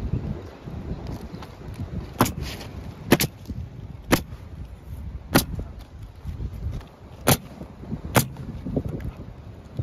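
Six sharp knocks about a second apart, over wind buffeting the microphone.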